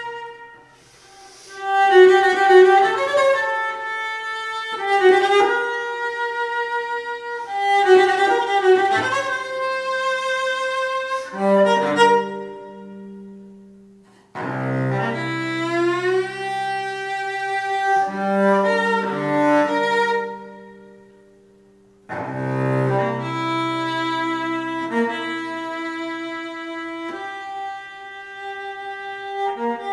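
Solo cello played with the bow: a contemporary piece in phrases of several notes, often two or more pitches sounding together, broken by short pauses. About halfway through the notes slide in pitch.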